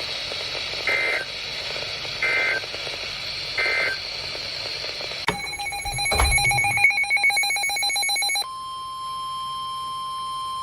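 Emergency alert signalling from NOAA Weather Radio for an incoming flood warning. First come three short bursts of SAME digital header data, each a fraction of a second. Then about three seconds of a rapidly pulsing, multi-tone electronic alarm with a thump in the middle. Then, from about two-thirds of the way in, the steady single-pitch Weather Radio warning alarm tone (1050 Hz).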